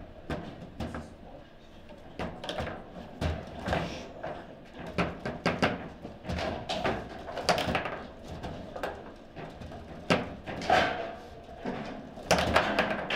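Table football play: irregular sharp knocks and clacks of the ball against the figures and table, and of the rods being worked. A louder strike comes about ten seconds in and a flurry of them near the end.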